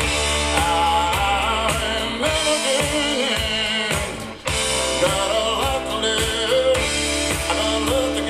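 Rock song with a singing voice over a band with a steady drum beat, played back through Aeria Compact hi-fi loudspeakers driven by a Luxman FQ 990 amplifier. The music drops briefly about four seconds in, then comes back at full level.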